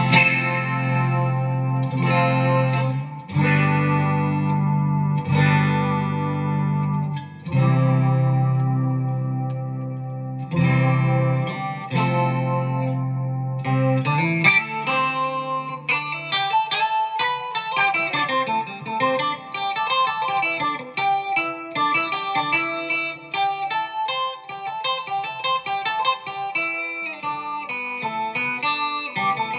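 Electric guitar played through a BOSS SY-200 synthesizer pedal. It begins with long held synth notes of about two seconds each, then about halfway through changes to a fast run of short, quickly changing notes.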